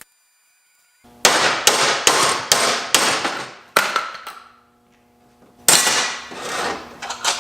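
Hammer blows on metal, each strike ringing out: about six quick strikes in the first few seconds, a short pause, then a few more near the end.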